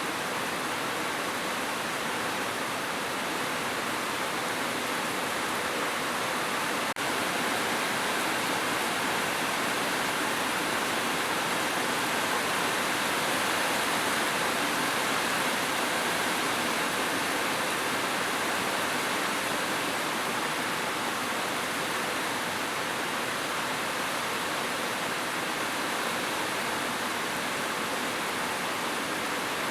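Heavy rain falling on a roof: a steady, dense hiss of rain with no change in strength.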